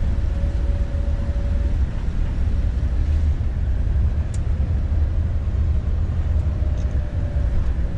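Tour bus driving at road speed, heard from inside the cabin: a steady, low engine and road drone.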